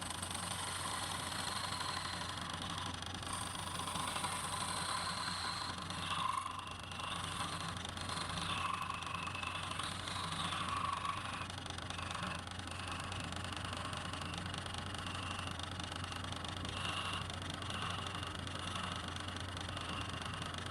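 Wood lathe running with a steady motor hum while a turning tool cuts the spinning wood, the cutting hiss rising and falling as the tool works.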